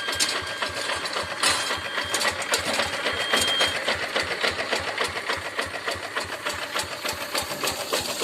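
A walk-behind rice-paddy tractor's single-cylinder diesel engine running under way, with a rapid, even chugging.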